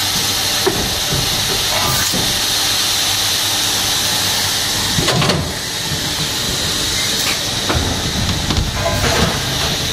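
Extrusion blow molding machine running: a steady hiss of compressed air, broken by a few short knocks and bursts a couple of seconds apart as the pneumatic mold clamps and blowing heads cycle.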